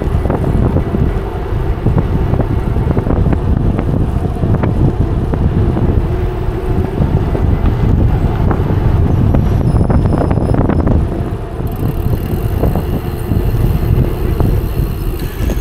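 Wind buffeting an action camera's microphone while riding an e-bike, a steady low rumble with scattered short clicks and rattles.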